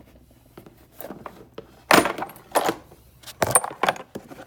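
Metal router bits clinking and rattling as they are handled in their box: a run of separate clicks and knocks, a few of them with a short bright metallic ring near the end.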